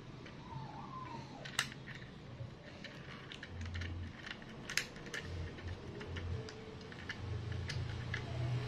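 Scattered small clicks and knocks of a DSLR camera being handled and fitted onto a handheld grip stabilizer's bracket, with a sharper click about a second and a half in and another near five seconds.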